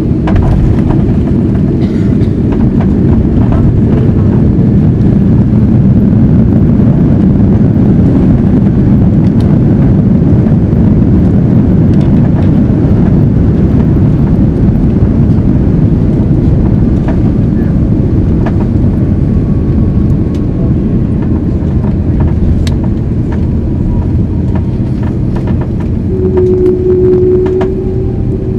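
Cabin noise of an Airbus A330-300 on its landing rollout: a loud, steady rumble from the engines and the wheels on the runway, with light rattles from the cabin. It is heaviest in the first few seconds and slowly eases as the aircraft slows, with a short steady whine near the end.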